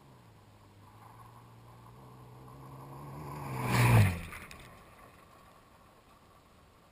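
A car's engine approaching on a gravel road, growing steadily louder, then passing directly overhead in a loud rush of engine and tyre noise about four seconds in. It fades away quickly after the pass, with a few sharp clicks just after it.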